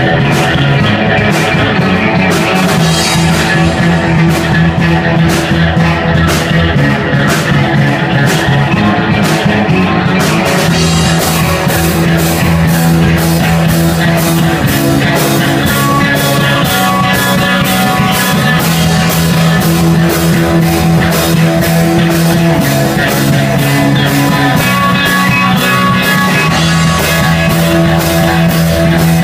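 Live rock band playing amplified electric guitars over a drum kit. The cymbals get busier about eleven seconds in.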